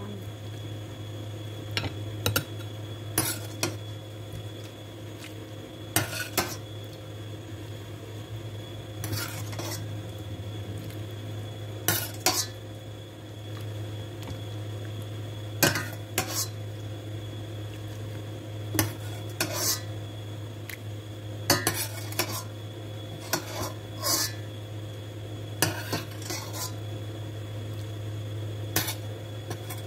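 Metal ladle clinking against a glass serving bowl while stirring and scooping chicken and kidney bean soup, with sharp clinks every second or two over a steady low hum.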